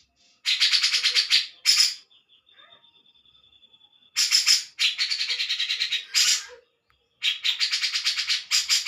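Grey-cheeked bulbul (cucak jenggot) calling in three loud bursts of harsh, rapid chattering, about ten notes a second. Between the first two bursts there is a faint thin, steady whistle.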